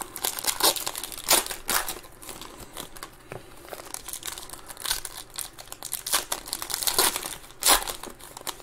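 Foil wrapper of a trading-card pack crinkling and tearing as it is pulled open by hand, in irregular crackles, the loudest about a second and a half in and again near the end.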